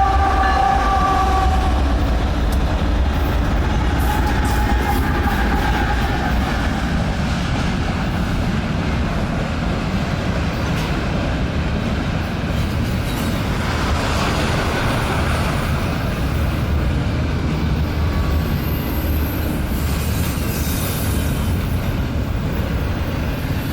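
A BNSF freight train passes close by: a deep, steady diesel-locomotive rumble, with steel wheels clicking over the rail joints. The tail of a horn blast fades away in the first second or two.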